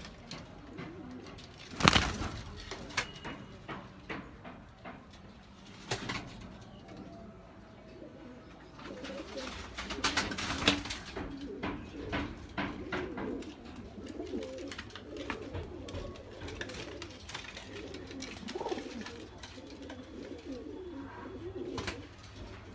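Domestic pigeons cooing, a low warbling coo that repeats mostly from about nine seconds in. Scattered sharp knocks and clicks come through it, the loudest about two seconds in.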